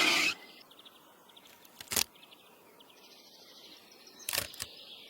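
Quiet outdoor background with faint, rapid high-pitched chirping, broken by a sharp click about two seconds in and a few more clicks near the end.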